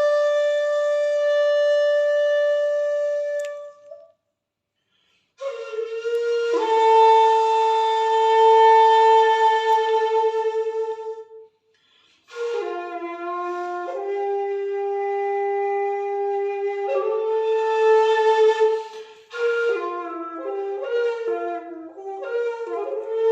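Jinashi 1.6 shakuhachi, black madake bamboo, played solo in long held notes grouped into phrases, with two short breath pauses. The notes change more quickly near the end.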